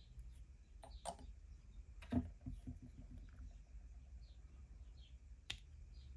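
Small handling clicks and knocks of plastic model parts and a glue bottle. The loudest is a knock about two seconds in followed by a brief rattle of taps, as the brush cap goes back onto the glass cement bottle, and a sharp click comes near the end as the two plastic fender halves are pressed together.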